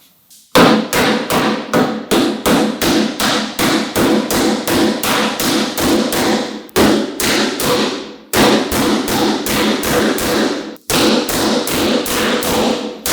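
Rapid, steady hammer or mallet blows on wood, about three a second, in runs broken by short pauses.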